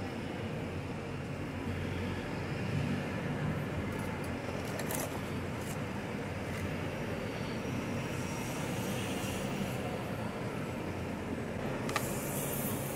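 Steady low background rumble of outdoor ambience, with a few light clicks of small metal scrap parts being handled and dropped in a plastic tub, one about five seconds in and one about twelve seconds in.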